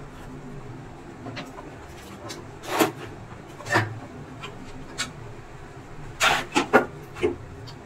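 Handling noise from an induction cooker's copper coil assembly being moved and set down on cardboard: a series of short scrapes and knocks, two around three to four seconds in and a quick cluster of four near the end, over a steady low hum.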